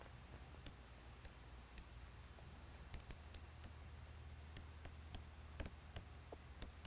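Rotary selector knob on a Whelen WPA1 siren control head being turned through its positions: a dozen or so faint, light clicks at uneven spacing.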